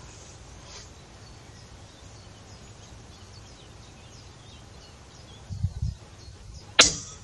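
Outdoor background with faint birdsong, a couple of low thuds, then near the end a single sharp shot from a PCP air rifle.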